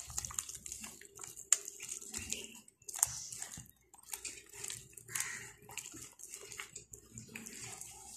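A hand squishing and kneading wet gram-flour batter in a bowl: a run of irregular soft squelches and small clicks as water is worked into the besan.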